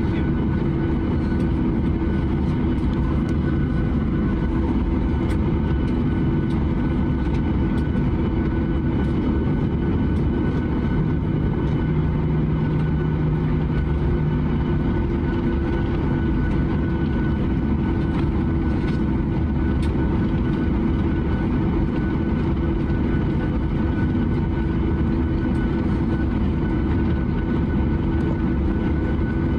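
Cabin noise of a Boeing 737-900ER taxiing, its CFM56-7B jet engines running at low thrust: a steady drone with a steady high whine over it, heard from inside the cabin beside the wing.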